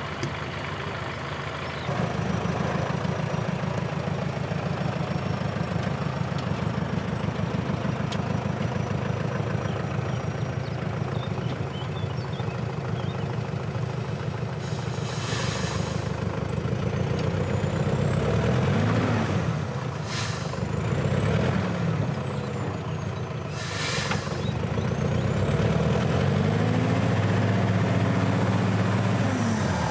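A small tipper truck's engine running as the truck reverses and manoeuvres across grass. The revs rise and fall twice in the second half. There are three short hisses.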